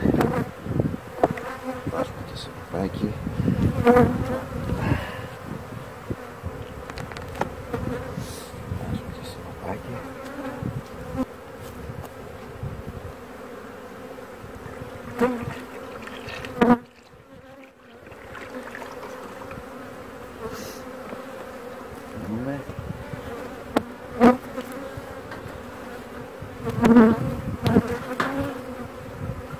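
Honeybee colony buzzing in an open hive, a steady hum. A few sharp knocks of hive parts being handled break through it, the loudest near the start, about halfway, and near the end as the hive is closed up.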